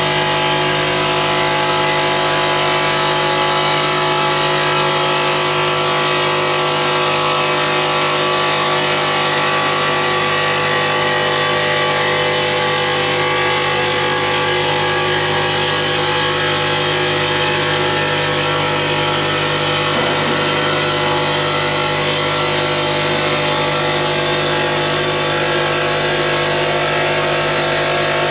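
CNC stone polishing machine running, its spindle motor giving a steady hum with several held whining tones over a constant grinding hiss.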